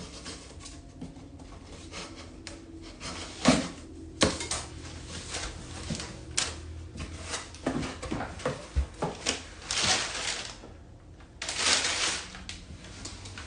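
Gift packaging being unpacked by hand: irregular clicks, taps and knocks of cardboard and plastic parts, with two longer bursts of rustling or tearing near the end.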